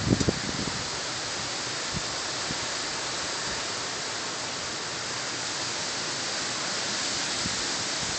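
Hurricane wind and rain making a steady, even hiss, with a few low gusts buffeting the microphone right at the start.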